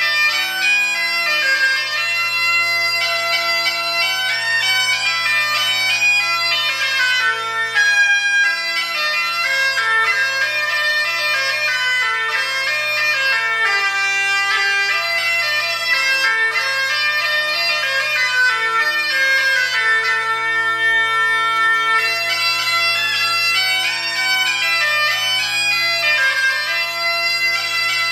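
Dudelsack (German-style bagpipe) playing a continuous melody over a steady drone, echoing in a large empty room.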